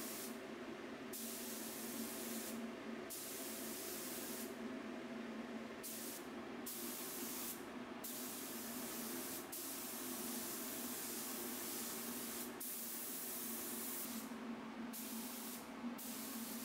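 Compressed-air spray gun spraying finish in passes: a steady hiss that stops briefly about seven times as the trigger is let off. A steady low hum runs underneath.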